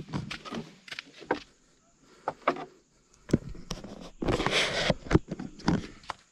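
Footsteps on a gritty stone footpath, shoes scuffing and crunching on grit and dry leaves at an uneven walking pace, with a pause in the middle and a longer burst of scuffing noise about four seconds in.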